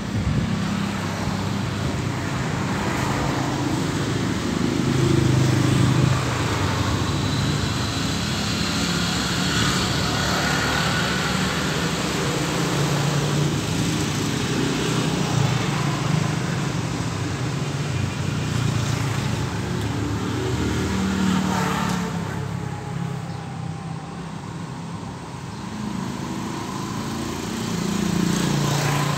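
Motor vehicle traffic passing on the road: engine rumble that swells and fades with each passing vehicle, easing off for a few seconds near the end.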